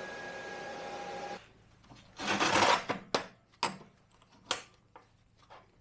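Metal parts being handled on a steel shop bench: a steady hum stops abruptly, then a short loud burst of noise about two seconds in, followed by four sharp metal clanks and taps.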